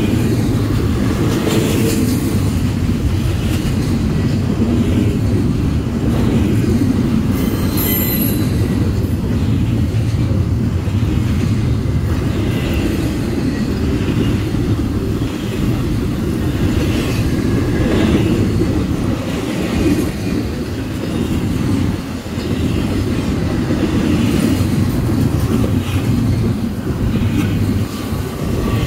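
Double-stack intermodal freight train rolling past: a steady heavy rumble of steel wheels and well cars, with wheels clacking over rail joints and occasional faint wheel squeal.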